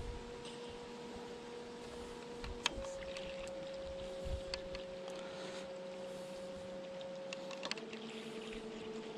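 Faint steady whine of a radio-controlled bait boat's electric motor, straining to tow a hooked fish. Its pitch steps up with a click about two and a half seconds in and drops back with another click near the end.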